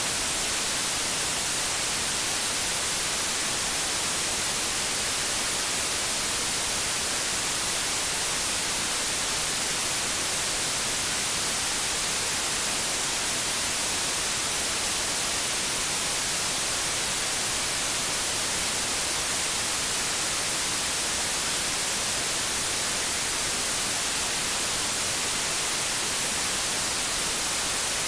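Steady white noise: an even, unchanging hiss, strongest in the high treble.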